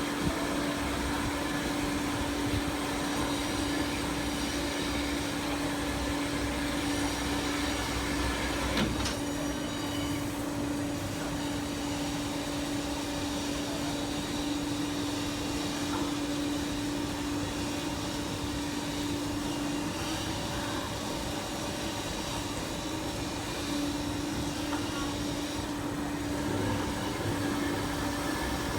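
Fully automatic band saw machine running with a steady mechanical hum and noise. There is a short sharp clack about nine seconds in, after which the deepest rumble drops away, and the hum pauses for a few seconds later on.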